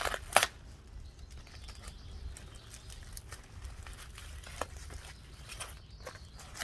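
Packaging rustling and crinkling as table parts are unpacked and handled, with a sharp knock about half a second in and scattered light clicks after.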